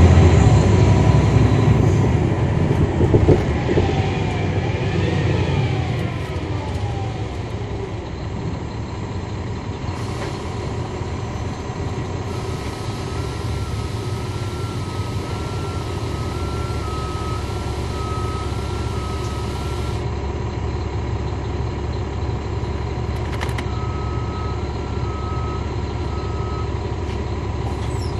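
Caterpillar C13 ACERT diesel of a 2009 NABI 40-foot transit bus heard from the rear seats: the engine and driveline whine fall in pitch and the sound eases over the first several seconds, as when the bus slows. It then settles into a steady lower running sound. A faint high two-note beeping comes in for several seconds in the middle and again briefly near the end.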